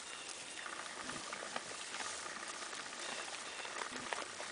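Angora goats nosing through and chewing dry hay: a steady rustling with scattered small crunches and clicks.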